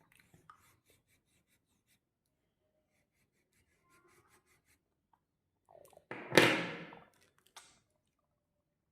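Candy and chocolate wrappers being handled: faint crinkles and clicks, then a loud rip of about a second, about six seconds in, as a wrapper is torn open, followed by a short smaller rustle.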